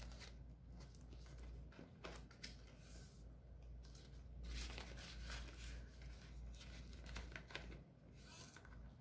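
Faint rustling and crinkling of paper banknotes and clear plastic binder pockets as bills are counted and slid into a pocket and the plastic pages are turned.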